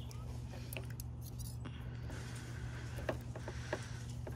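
Household scissors snipping at headlight wiring: a few faint, sharp clicks over a steady low hum.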